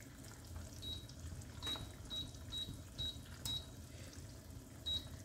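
About seven short, high electronic beeps, roughly two a second, with a pause before the last one, over a faint low background.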